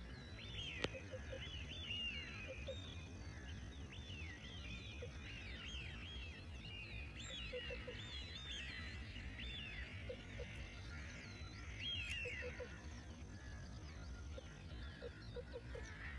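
Many small birds chirping and calling over and over, faint, with a low steady rumble underneath and one sharp click about a second in.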